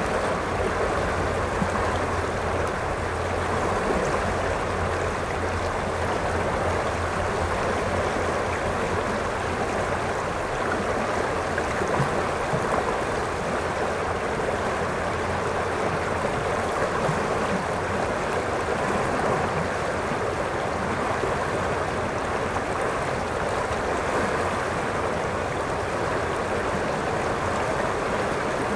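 A shallow river rushing over a rocky riffle: a steady, even sound of running water.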